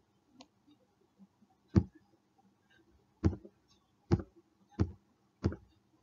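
Five short, sharp clicks at uneven intervals, made while a slide is being marked up on screen with a mouse or pen tool.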